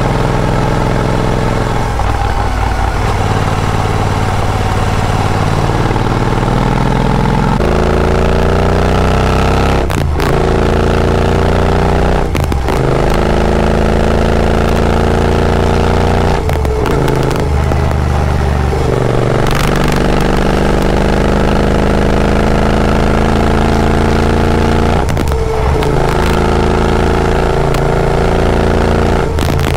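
Royal Enfield Interceptor 650's parallel-twin engine through AEW TE101 aftermarket exhausts, ridden under load. It runs fairly steady at first, then about a quarter of the way in it pulls up through the gears: the pitch rises in each gear and dips briefly at each of several gear changes.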